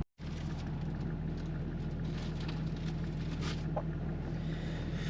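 Vehicle engine running steadily, a low even hum with faint scattered ticks.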